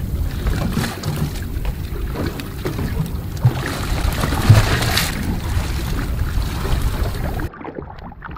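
Wind buffeting the microphone on a small boat at sea, a steady low rumble with a hiss of wind and water over it. About seven seconds in it cuts to a quieter, muffled underwater recording.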